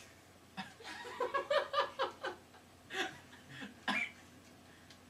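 A person laughing in a quick string of short bursts, followed by two shorter outbursts about three and four seconds in.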